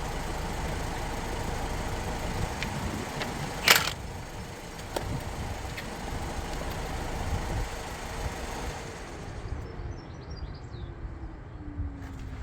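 Car engine idling, with one sharp knock about four seconds in, after which the sound drops a little. Later a low tone slides slowly downward.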